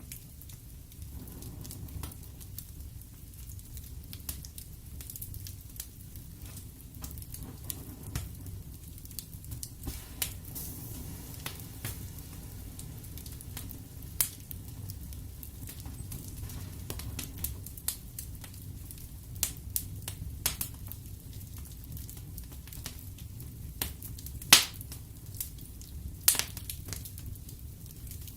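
Wood fire burning in a fireplace: a steady low rumble of flames with constant crackling and frequent sharp pops of the burning logs, two louder snaps near the end.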